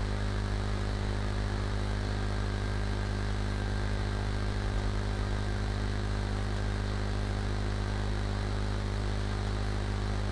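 Steady electrical hum with an even hiss over it, unchanging throughout: background noise of the narration microphone and recording setup.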